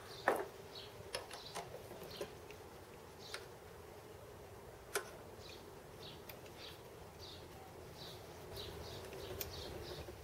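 Scattered metal clicks and knocks from hand-adjusting a bench lathe's quick-change tool post and chuck, the loudest just after the start and another sharp click about five seconds in. A faint steady hum and repeated short high chirps run underneath.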